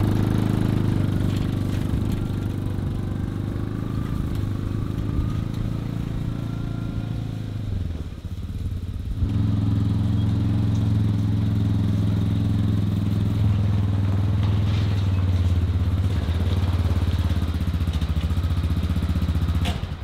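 Side-by-side UTV engine running steadily while it tows a small trailer loaded with barn wood. The engine note sags briefly about eight seconds in, then runs on louder and steady.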